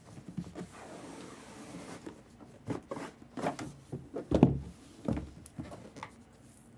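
Packaging of a mystery jersey being handled and opened: soft rustling, then a string of irregular knocks and thuds, the loudest about four and a half seconds in.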